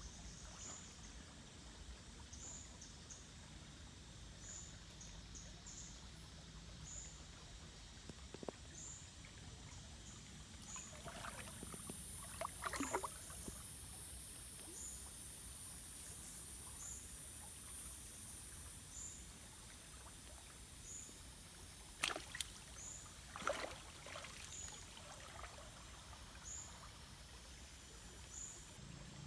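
A hooked catfish splashes and thrashes on a line in shallow, muddy stream water, with short splashes a few times, the busiest about halfway through and again past two-thirds. A high chirp repeats about once a second throughout, and a loud high hiss swells in for several seconds in the middle.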